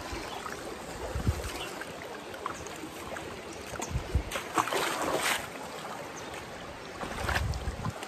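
Stream water running steadily, with a few low thumps of wind on the microphone and a brief cluster of louder noises about halfway through.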